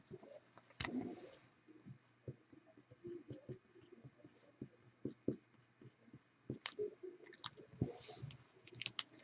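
Trading cards and their plastic holders being handled, with scattered soft clicks and short rustles.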